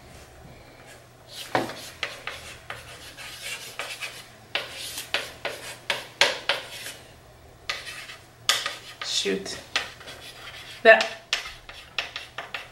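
Writing on a small handheld wooden-framed chalkboard: quick scratchy strokes in irregular bursts, with two short squeaks in the second half.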